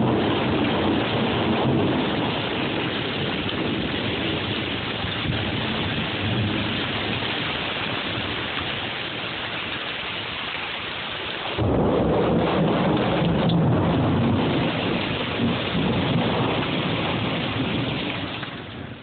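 Heavy storm rain pouring down in a steady loud rush. About two-thirds of the way through, a loud low rumble comes in suddenly and runs for several seconds, fading near the end.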